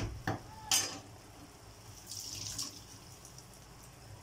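Pork steak sauce simmering in a pan on a gas stove: a soft bubbling, sizzling hiss that swells briefly about two seconds in. A couple of light knocks come in the first second.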